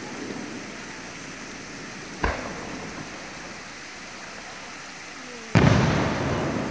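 Aerial firework shells bursting: a smaller sharp crack about two seconds in, then a much louder bang about five and a half seconds in that rolls away in a long echo.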